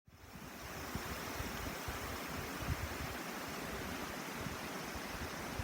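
Steady murmur of a mountain river, fading in over about half a second, with occasional soft low thumps underneath.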